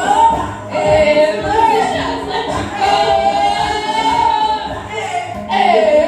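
A choir singing gospel music, with a long held phrase in the middle.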